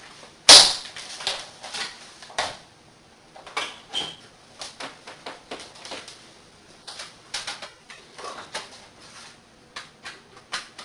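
Handling noise of a small metal network firewall and its cables on a wooden table: a sharp knock about half a second in, then a run of lighter, irregular clicks and taps as the unit and leads are moved and set up.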